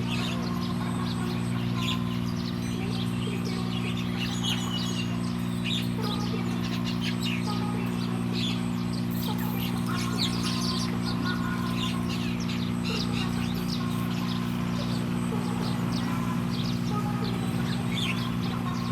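Small birds chirping with many short, rapid calls throughout, over a steady low hum.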